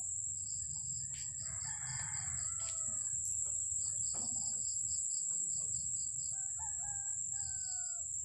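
Rooster crowing twice, once about a second in and again near the end, over a steady high-pitched insect drone and rapid chirping.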